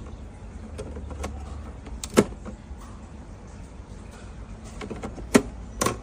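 Eggs being set into a clear plastic refrigerator egg tray: light clicks, with a sharp knock about two seconds in and two more near the end, over a steady low hum.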